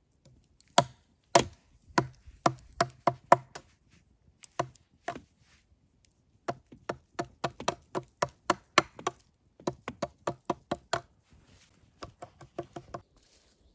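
Knife blade chopping into the lower end of an upright wooden stake: sharp strikes of steel on wood, about two to three a second, in several quick runs with short pauses between them.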